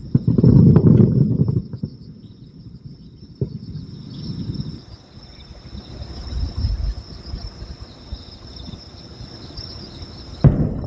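Distant fireworks: a loud low boom lasting over a second near the start, a short crack a few seconds later, a softer low rumble midway, and a sharp bang just before the end, over steady cricket chirring.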